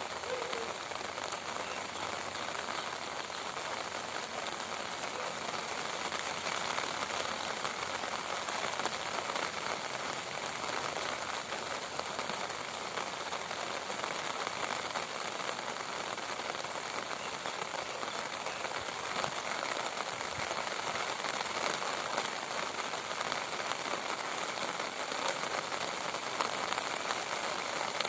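Rain falling steadily: an even hiss of many drops hitting a surface, holding the same intensity throughout.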